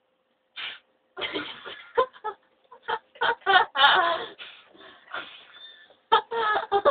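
A person's voice making a string of short, wordless vocal noises, mixed with giggling.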